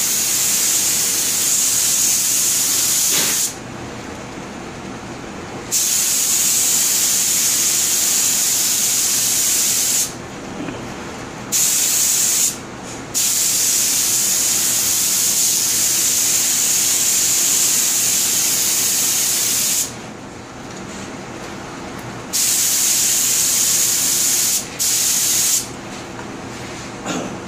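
Paint sprayer spraying white paint onto wicker in a run of on-off hissing bursts, about six in all, each lasting one to four seconds with short pauses between. A steady low hum continues underneath.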